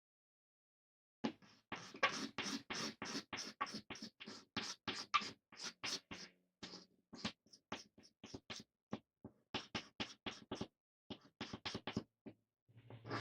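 Rapid back-and-forth scraping strokes, about four a second, starting about a second in, in hand restoration work on a wooden plane.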